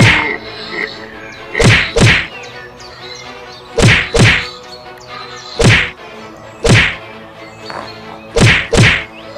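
Impact sound effects for an animated deer fight: about eight heavy whacks, most coming in quick pairs, over faint background music.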